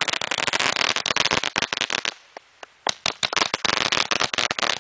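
Consumer fireworks going off in rapid, crackling pops, dense and continuous. They break off for under a second about two seconds in, then resume.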